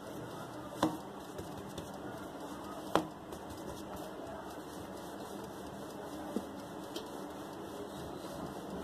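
Hands pressing and flattening bread dough on a floured stone countertop: a quiet steady hiss with a few faint taps, the sharpest about one and three seconds in.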